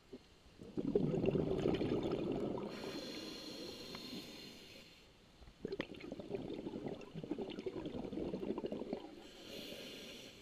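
A scuba diver breathing through a regulator underwater: two breaths, each a long burst of bubbling exhaust from the exhalation followed by the hiss of the regulator on the inhalation.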